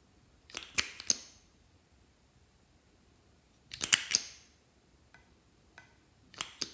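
Glossy slime being squeezed and pressed by hand, giving three short bursts of crackling clicks and pops from trapped air, with a couple of faint ticks between.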